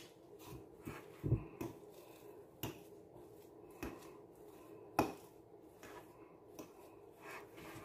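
Metal fork tapping and scraping against a bowl while mashing crumbly salted white cheese: scattered soft clicks and knocks, the sharpest about five seconds in.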